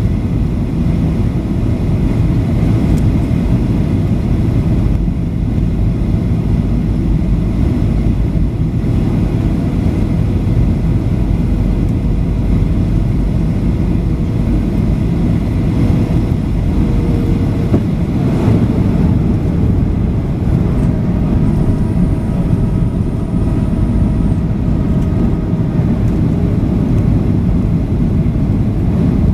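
Steady low roar inside the cabin of a Boeing 737-800 on descent: its CFM56-7B turbofan engines and the airflow over the fuselage, heard from a window seat over the wing. A faint high whistle comes in for about three seconds past the middle.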